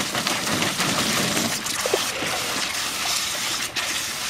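A black Labrador splashing and pawing at the water in a plastic kiddie pool while a garden hose runs into it: a steady wash of splashing and running water.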